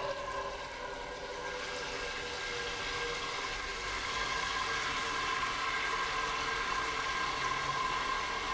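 Tap water spraying from a sink sprayer nozzle into a cooking pot, a steady hiss with a faint steady whine that slowly grows a little louder as the pot fills.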